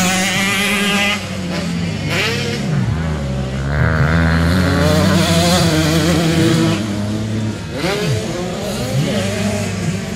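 Several motocross bikes racing, their engines revving up and down, with the pitches rising and falling and crossing one another as the bikes accelerate and back off over the jumps.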